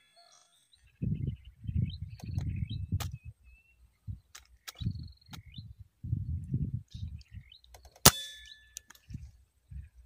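A single sharp crack of an air rifle shot about eight seconds in, followed by a brief ringing tone. Birds chirp in short calls before it, over low rumbling noise that comes and goes.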